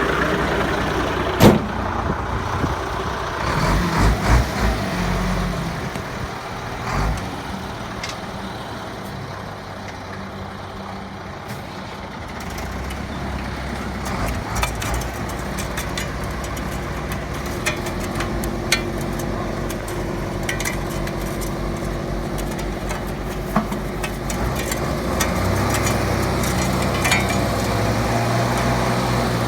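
Heavily loaded truck's engine running, with scattered knocks and rattles; one sharp knock comes about a second and a half in. The engine note rises a little near the end.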